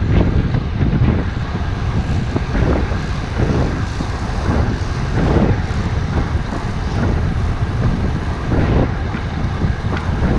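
Wind rushing over the microphone of a camera carried by a moving road cyclist. It is a loud, steady buffeting that swells and eases in gusts.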